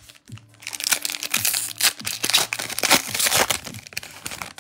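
The foil wrapper of a Topps Chrome trading-card pack being torn open and crinkled by gloved hands. A dense crackling starts about half a second in and dies away near the end.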